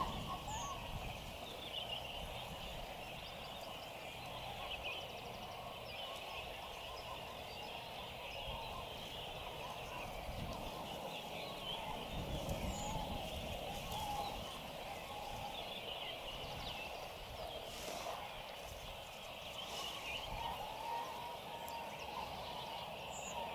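A steady chorus of many overlapping animal calls, a dense chatter in two pitch bands, one middling and one higher, with a faint low rumble beneath.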